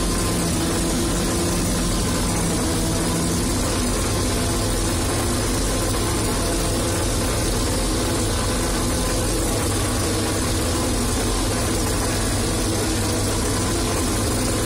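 Fortschritt E-281 self-propelled forage harvester running steadily while it cuts maize, heard from inside its cab: a continuous engine drone over the noise of the machinery. A humming tone in it fades out about four seconds in.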